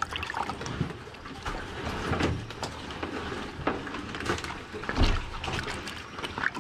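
Water pouring from a metal spout into a full basin, splashing and gurgling unevenly, with a low rumble underneath.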